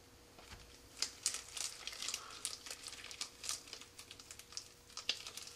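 Gloved hands rubbing grease onto a rubber O-ring and handling small rocket-motor parts: a string of soft rustles, squeaks and small clicks starting about a second in, over a faint steady hum.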